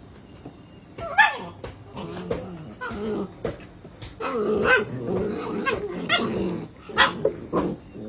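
Great Dane puppies play-fighting: low growls through the middle and short, sharp high yelps about a second in and twice near the end.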